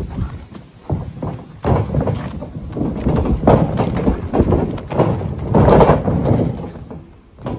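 Wrestlers' feet and bodies hitting the canvas of a backyard wrestling ring, with the ring ropes rattling: an uneven run of thuds and knocks, loudest around the takedown five to six seconds in.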